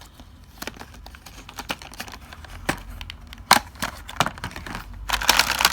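Small plastic clicks and taps as an SSD is handled in its plastic packaging, with a burst of crinkling near the end.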